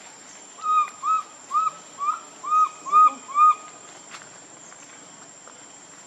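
An animal calling: a series of about eight short, arched, whistled notes, two to three a second, that stops after about three seconds.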